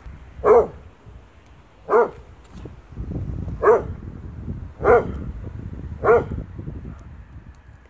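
German Shorthaired Pointer barking five times, single deep barks spaced about a second and a half apart, at its own shadow on a wall.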